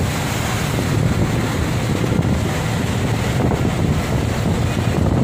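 Wind buffeting the phone's microphone: a loud, steady, rumbling rush that flutters in level.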